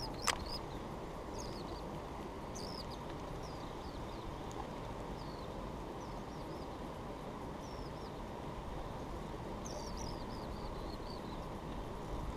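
Small birds chirping, short high notes sliding downward, often in quick runs of several, over a steady low outdoor rumble. A single sharp click sounds once just after the start.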